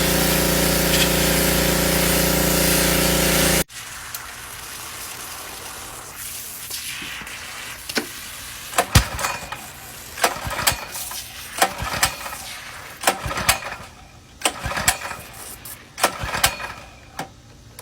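Pressure washer engine running steadily, then cutting off abruptly a few seconds in. After that comes a quieter stretch of scattered sharp clicks and knocks from handling equipment.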